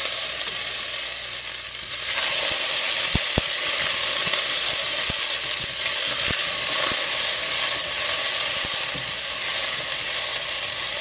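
Diced onion, carrot and celery sizzling in hot oil in a stainless steel saucepan, the sizzle growing louder about two seconds in. A spatula stirs them, knocking and scraping against the pan a few times.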